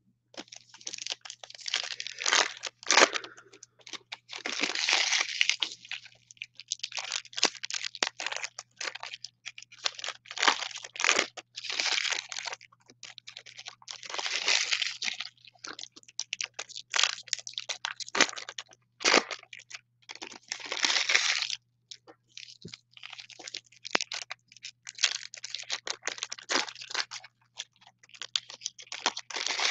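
Foil trading-card packs and their clear plastic wrapping crinkling and tearing open in the hands, in irregular bursts with short pauses between them.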